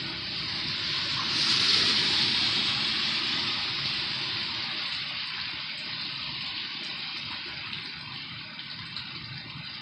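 Water rushing or gushing, swelling about a second and a half in, then slowly easing off.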